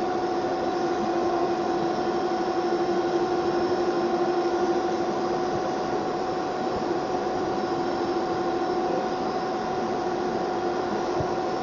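Heavy machinery running steadily: a constant mechanical hum with a steady whine over a noisy rumble, unchanging throughout.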